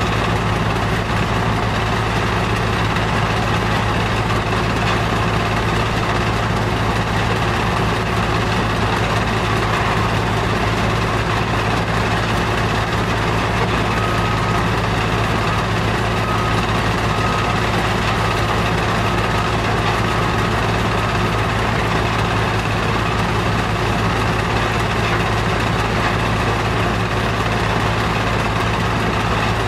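Stone crusher plant machinery running steadily, a constant low mechanical hum with no distinct rock impacts.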